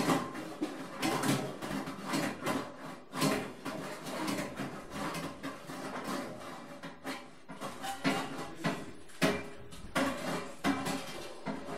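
Free, unmetered percussion on a drum kit with objects played on it: irregular knocks, taps and rattles on the drum heads and cymbals, with no steady beat.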